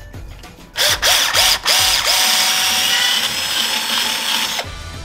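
Cordless drill boring a hole through a black plastic part held in a bench vise. A few short trigger pulses, each spinning up, start about a second in, then one steady run of about two and a half seconds stops shortly before the end.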